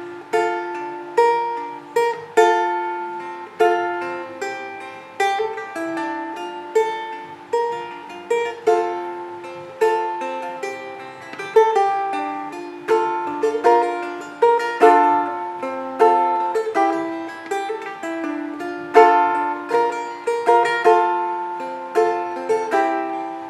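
Balalaika in traditional C–E–G tuning played slowly by fingerpicking, a steady run of single plucked notes, about two a second, each ringing and fading, through the song's chord progression.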